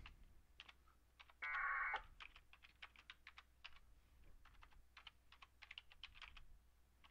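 Computer keyboard typing, a steady run of single keystroke clicks. About one and a half seconds in, a half-second packet radio data burst of warbling modem tones comes over the VHF radio's speaker.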